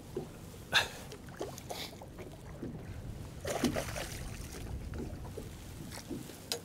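Water lapping against a small boat's hull with wind on the microphone, broken by a few short splashes and knocks as a hooked fish is brought to the side and grabbed from the water.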